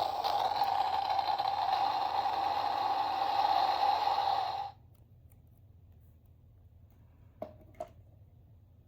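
A small sound-effect toy playing a recorded effect through its tiny speaker: a loud rushing noise with a steady hum in it that cuts off suddenly a little past halfway. Two short clicks follow near the end, like the toy's button being pressed.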